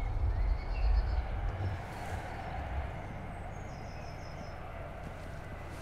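Steady low outdoor rumble, heavier during the first second and a half, then settling to an even background noise with faint high chirps near the middle.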